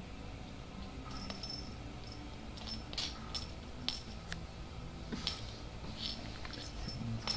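Irregular light clicks and small metallic tinkles as a kitten bats at a string-and-pompom cat toy on a wooden floor.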